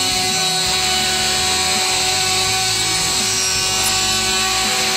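Electric plunge router running at full speed, routing a recess for a concealed hinge into wood through an aluminium template. It makes a steady, high-pitched motor whine with cutting noise.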